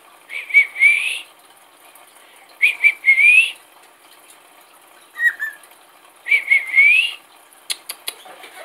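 Cockatiel whistling the same short phrase three times: two quick notes and then a rising slide. A brief chirp comes between the second and third phrase, and there are a few sharp clicks near the end.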